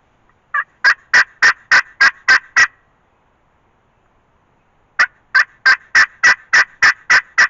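Turkey call sounding two series of loud hen yelps, about three notes a second, eight notes then nine after a pause. The calls are sent out to locate a gobbler and draw a gobble back, and none answers.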